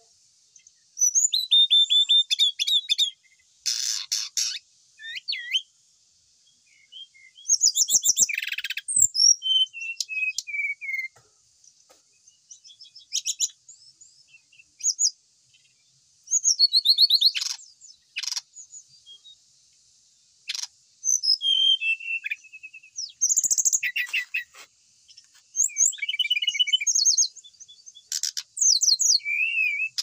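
Brown-chested jungle flycatcher singing: short phrases of quick, high whistles and rapid trills, about a dozen of them, each a second or so long, with pauses between.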